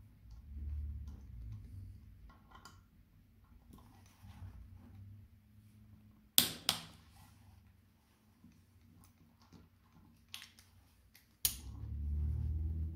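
Click-type torque wrench tightening alternator stator bolts, with faint ratchet ticks and then two sharp clicks close together about six and a half seconds in, and another near the end: the wrench breaking over at its set torque. A low rumble comes in after the last click.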